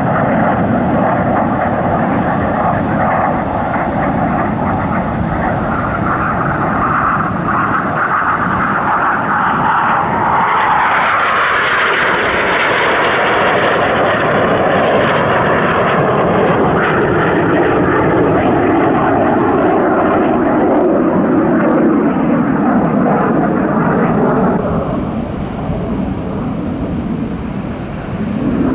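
Aermacchi MB-339 jet trainer's turbojet running loud as it passes overhead, brightest about twelve seconds in and then dropping steadily in pitch as it moves away. The sound dips briefly near the end before swelling again as more jets approach.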